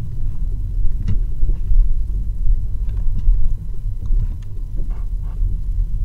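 Steady low rumble inside a 2008 VW Rabbit's cabin as it is driven, with engine and road noise at around 1,000 to 1,600 rpm and a few faint ticks. The engine keeps running; no stall occurs here.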